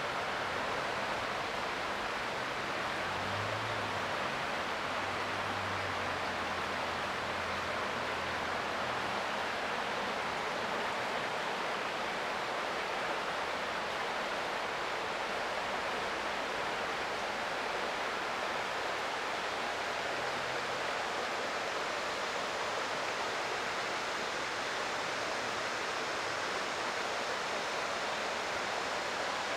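Creek water flowing over rocks: a steady, even rushing.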